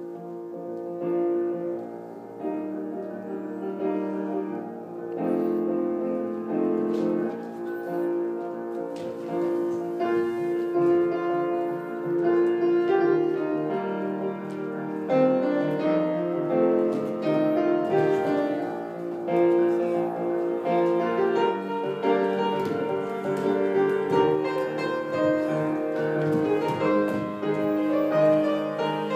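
Piano music playing, growing louder over the first few seconds and then holding steady.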